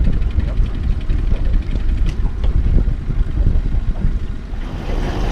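Fishing boat's motor running while trolling: a steady low rumble on the water.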